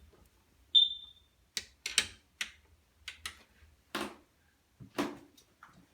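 Bathroom fixtures handled and tested by hand: a brief high squeak, then a string of irregular sharp clicks and knocks, metal and plastic parts being worked and wiggled.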